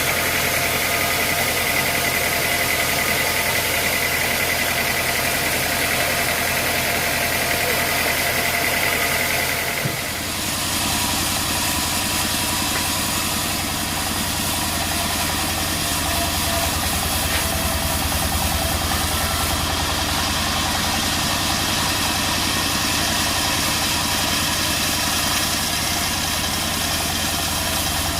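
Sawmill machinery running steadily with a dense mechanical hum. A higher whine stops about ten seconds in and the low hum shifts.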